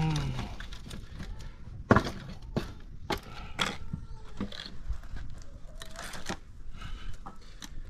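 Dry sticks and branches being handled, snapped and knocked into place on an open wood fire. There is one sharp crack about two seconds in, and several lighter snaps and knocks follow.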